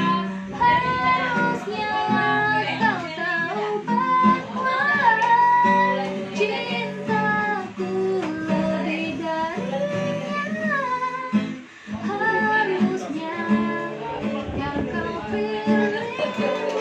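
A child singing a pop song, accompanied by a plucked acoustic guitar.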